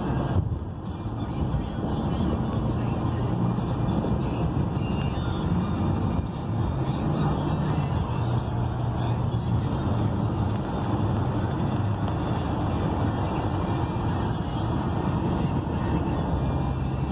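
Steady road and engine noise inside a vehicle's cabin while driving at highway speed.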